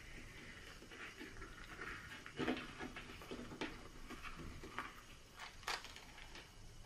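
Faint crackling and rustling of a dry, stiff spring roll wrapper being folded and rolled by hand around a nut filling, with scattered small clicks, the sharpest about two and a half seconds in and again near six seconds.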